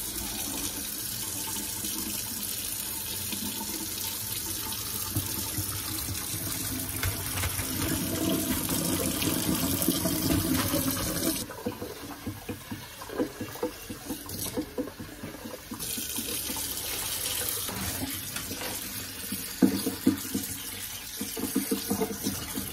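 Kitchen faucet running into a stainless steel sink. About halfway through, the parboiling water from a pot of chitterlings is poured off through a metal colander with uneven splashing, draining away the foamy first boil. Then tap water runs over the chitterlings in the colander to rinse them.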